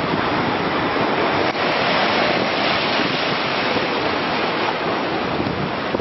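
High-tide surf churning and washing against the boulders of a rock jetty: a steady rushing of foaming water.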